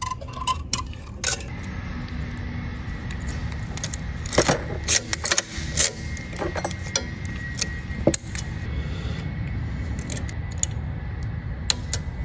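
Light, irregular metallic clicks and scrapes of 0.032-inch safety wire being threaded through an alternator mounting bolt and twisted with pliers, with a louder cluster of clicks around the middle. A steady low rumble runs underneath.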